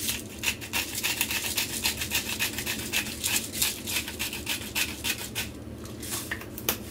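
Hand-twisted spice grinder being turned over a bowl, making a fast run of gritty grinding clicks for about five seconds, then a few single clicks near the end.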